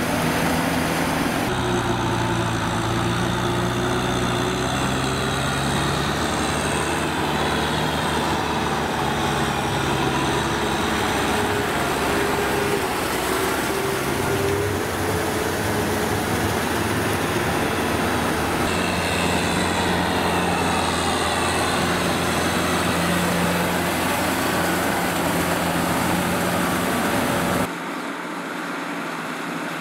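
Diesel engines of Kubota tractors running steadily under load while pulling rotary cultivators through deep paddy mud. The engine note changes a couple of times, and the sound drops to a quieter engine near the end.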